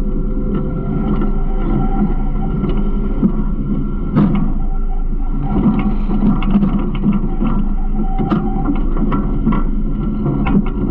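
Garbage truck running, a steady low mechanical hum with scattered rattles and clicks. Two sharper knocks stand out, about four seconds in and again about eight seconds in.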